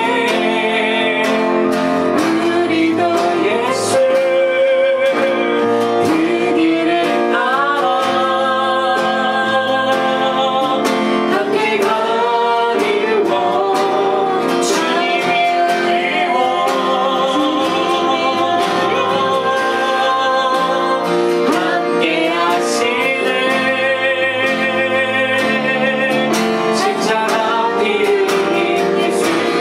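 A woman and a man singing a Korean worship song together, accompanied by an acoustic guitar.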